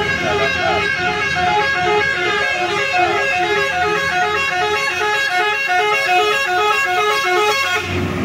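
Bus's telolet basuri multi-trumpet air horn playing a fast, repeating tune of short notes at several pitches, cutting off near the end.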